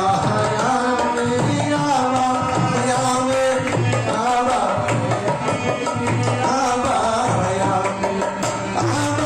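Devotional bhajan singing into a microphone, with a hand drum keeping a steady rhythm under the melodic vocal line.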